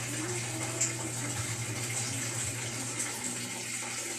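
Steady running water, like a tap or shower left running, with a low steady hum under it.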